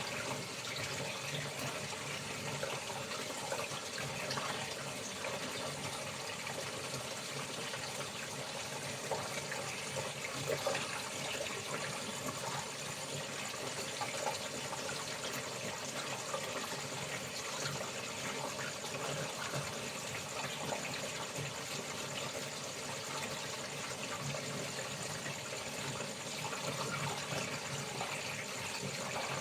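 Water running and splashing steadily while laundry is washed.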